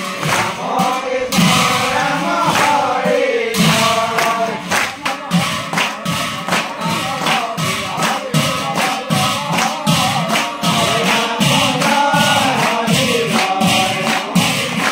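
A group of voices chanting Assamese devotional naam together to steady, rhythmic hand-clapping.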